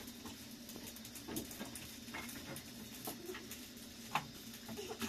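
Quiet room sound with a steady low hum and scattered light taps and clicks of small household handling, with one sharper knock about four seconds in.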